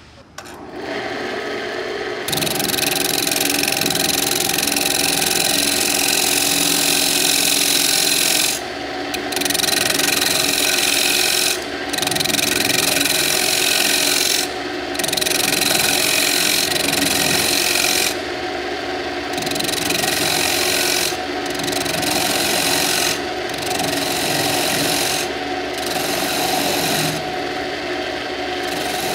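Wood lathe motor starting up and humming, then a steel lathe chisel cutting across the face of a spinning walnut blank: a loud scraping hiss of shavings coming off that breaks off briefly several times as the tool is lifted and set back to the wood.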